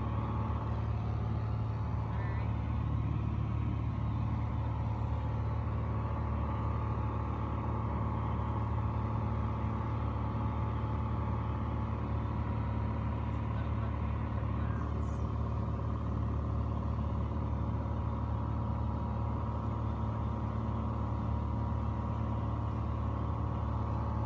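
Piper Dakota's six-cylinder Lycoming O-540 engine and propeller running steadily in flight, a constant drone heard inside the cabin.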